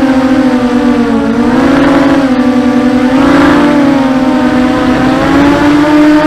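Brushless motors and propellers of a 250-size FPV quadcopter in flight, a steady multi-toned whine whose pitch dips about a second in and rises briefly twice as the throttle is changed.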